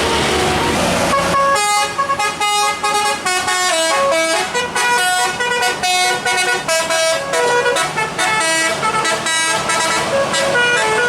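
Bus 'telolet' horn, a multi-tone horn playing a quick tune of short notes stepping up and down. It starts about a second in, after a steady hiss.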